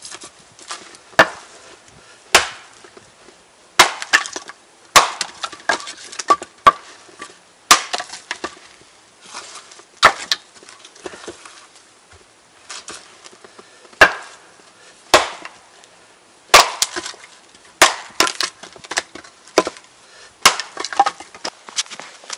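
Axe splitting firewood rounds on a chopping block: sharp wooden strikes every one to three seconds, often followed by the crack of the wood splitting and pieces knocking together.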